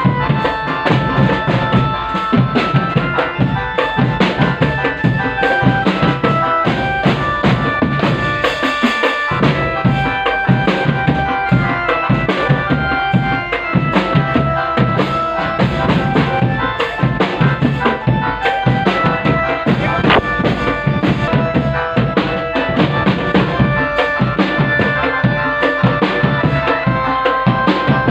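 A drum band accompanying a can macanan kadduk procession: loud, continuous music with dense drumming under a melody of held notes.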